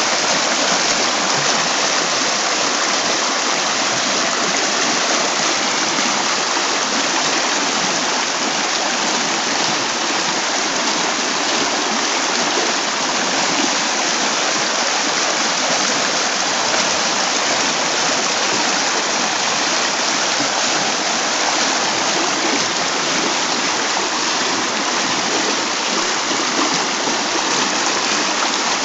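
Shallow, fast river water rushing over a stony bed in broken white-water riffles, a steady full rush with no breaks.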